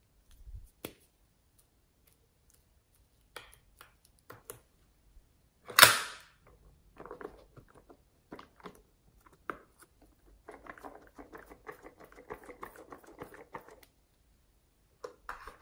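Small hard plastic objects being handled: scattered clicks, a single sharp plastic snap about six seconds in, then about three seconds of light rattling and crackling.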